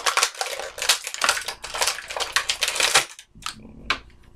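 Clear plastic toy packaging crinkling and crackling as it is handled and pulled open, stopping abruptly about three seconds in, followed by a few separate clicks.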